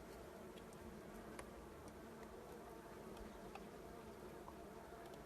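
Honeybees buzzing, a faint steady hum of many bees together, with a few light ticks.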